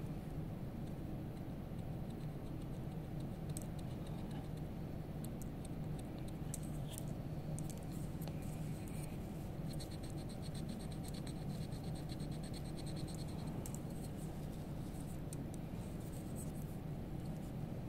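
Blue carving wax being scraped and shaved with a wax carving instrument: faint, irregular short scratching strokes over a steady low hum.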